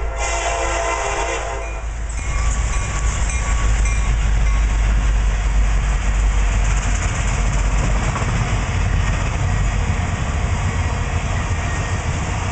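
CSX locomotive horn sounding at the grade crossing, cutting off a little under two seconds in. Then the work train's freight cars and flatcars of track machinery roll past close by, a steady heavy rumble of steel wheels on rail with some clickety-clack.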